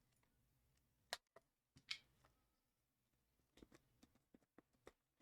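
Near silence broken by a few faint clicks and taps, a handful about a second in and a quick scatter near the end, from hands handling a sealed trading card box as it is opened.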